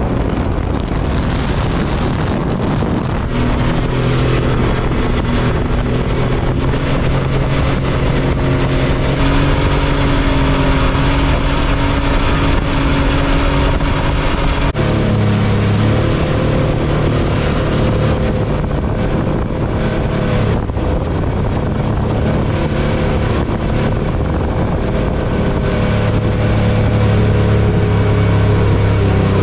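Mini jet boat's jet-ski engine running under way, with water rushing and spraying past the hull. The engine note changes a few times with the throttle and drops to a lower, steadier tone about halfway through.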